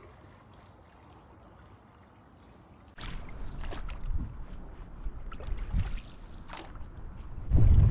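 Canadian canoe paddles dipping and pulling through loch water, splashy strokes about once a second with water lapping at the hull. The first few seconds are faint, and near the end wind buffets the microphone loudly.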